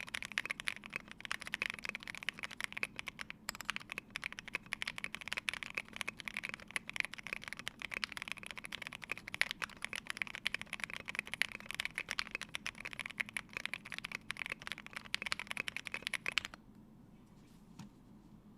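Fast continuous typing on a Polaris mechanical keyboard with lubed C3 Banana Split linear switches, a full polycarbonate plate and MT3 keycaps, a dense run of keystrokes. The typing stops about two and a half seconds before the end, leaving only faint hiss.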